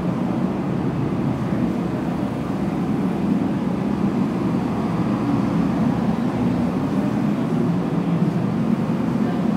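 Portable forced-air space heater running with a steady, even rushing noise that does not change.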